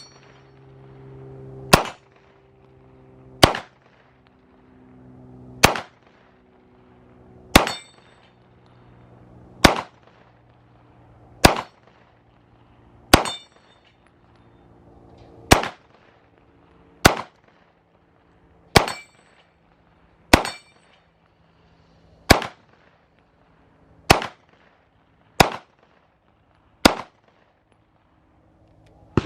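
Single shots from a PSA Dagger 9mm pistol, about fifteen fired at an even, deliberate pace of one every one and a half to two seconds, each hit on steel ringing with a clang. The string runs until the magazine empties and the slide locks back.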